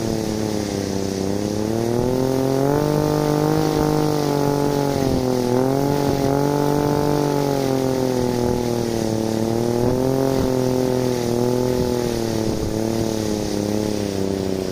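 A small 3D-printed wind turbine spinning fast in storm-force wind, its rotor and generator giving a steady mechanical hum. The pitch rises and falls as gusts speed the rotor up and slow it down. Wind rumbles on the microphone underneath.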